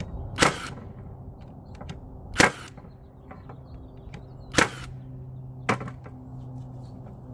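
Ryobi 18-volt brushless 21-degree cordless framing nailer firing in single-fire mode, four sharp shots about two seconds apart, the last a little weaker, each driving a framing nail into wood.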